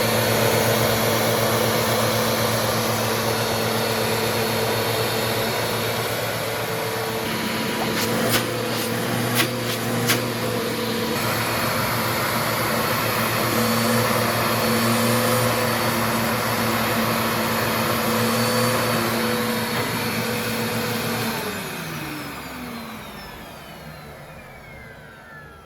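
Eureka Alimta vacuum cleaner running steadily, with a few sharp clicks about a third of the way in. Near the end it is switched off and the motor winds down, its pitch falling. The bin is full and the vacuum is clogged with cat hair.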